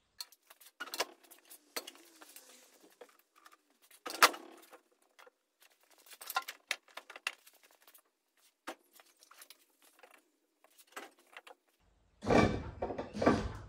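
Scattered metal clinks, taps and knocks as an RB30 engine is worked down into a car's engine bay onto the K-frame, with one sharp knock about four seconds in. Louder thumps and rustling follow near the end.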